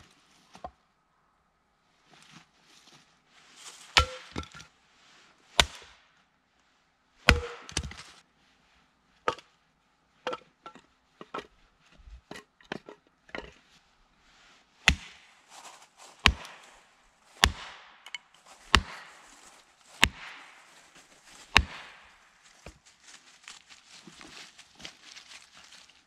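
Hatchet splitting firewood on a stump chopping block: more than a dozen sharp chops, uneven at first and then coming about every second and a half.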